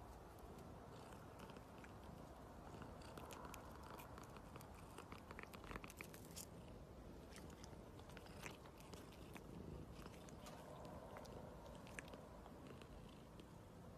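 Faint clicks and rustling as a long-haired grey cat mouths and nibbles a person's fingers, over a low steady background.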